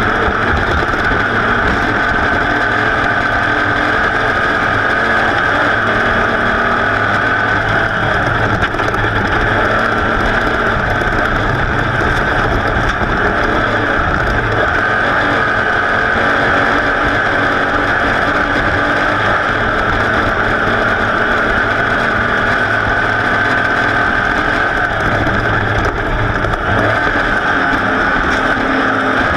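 A racing engine running hard and steady at high revs, with a slowly wavering pitch and no let-up.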